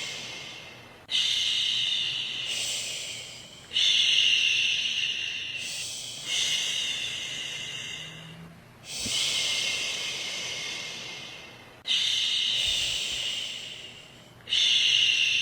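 A woman shushing "shhh" in long, repeated breaths to soothe a baby to sleep. Each shush starts sharply and trails off, about six in a row at an even pace of roughly one every two and a half seconds.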